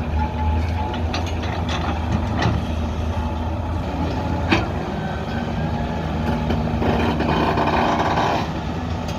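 Diesel engine of a digging machine running steadily, with sharp knocks and clanks, the loudest about halfway through. A hiss starts about seven seconds in and lasts over a second.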